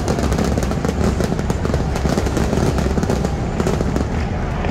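Stadium pyrotechnics firing: a dense, rapid crackle of many small firework pops going off together.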